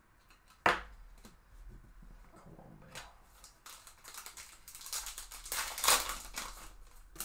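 Trading cards handled, with a sharp tap under a second in, then the foil wrapper of a Topps Chrome card pack crinkling as it is torn open, loudest about six seconds in.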